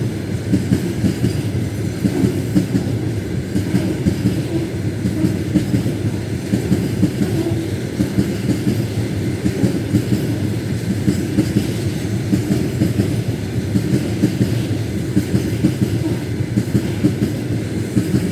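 A diesel-hauled repair train passing close by at steady speed, with steel wheels clattering over the rail joints in a regular clickety-clack and a constant low rumble.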